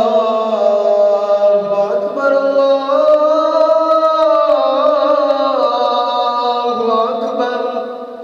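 Islamic call to prayer (azan) chanted by a single voice: one long drawn-out phrase that moves through several held notes with wavering ornaments, fading away near the end.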